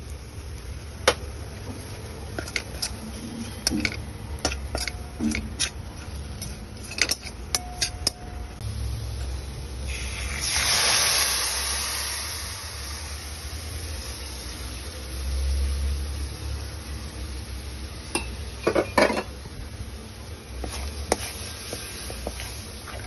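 Steel spatula clinking and scraping against a steel pan as masala is stirred into the oil, with a hissing sizzle about ten seconds in as tomato puree goes into the hot pan, fading over a couple of seconds; more clinks of the spatula follow as it is mixed.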